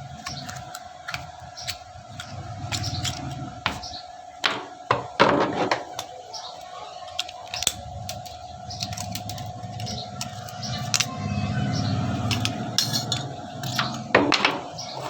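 Scattered metallic clinks and knocks of hand tools and a saw-blade workpiece being handled, over a steady hum. The loudest clatter comes about five seconds in and again near the end.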